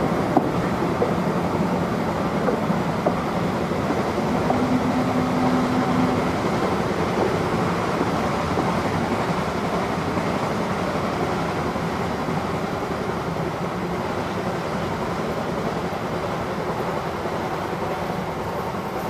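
A Cass Scenic Railroad train rolling along the track: a steady noise of wheels on rails that slowly fades as the train moves away.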